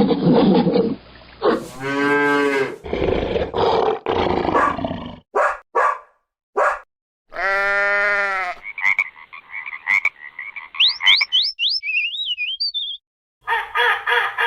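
A string of different animal calls cut one after another, each lasting a second or two. Noisy growl-like calls and two drawn-out pitched calls come first, then a few short clicks, and high whistling chirps near the end.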